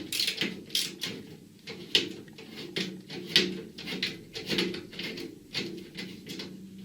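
Hand ratchet clicking in repeated strokes, about two a second, as a self-tapping screw is driven tight into the top of a steel tool cabinet.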